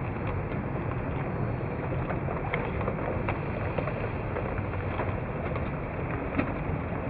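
Rivarossi model of a Union Pacific Big Boy locomotive running on the track, its sound slowed down: a steady low rumble of motor and wheels with scattered clicks, one sharper click about six seconds in.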